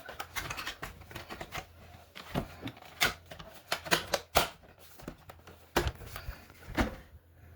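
Irregular plastic clicks and knocks as the parts of a Bissell ProHeat 2X Pet Pro carpet cleaner are handled and fitted back together, several to a second, with a few sharper knocks about three, four and six seconds in.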